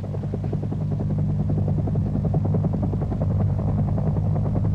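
Helicopters in flight: a steady engine drone under a rapid, even chop of rotor blades, growing slightly louder over the first second.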